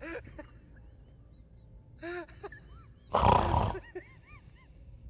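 A man snoring loudly and theatrically: one rasping snore about three seconds in, followed by short whistling notes. Short pitched vocal sounds come near the start and about two seconds in.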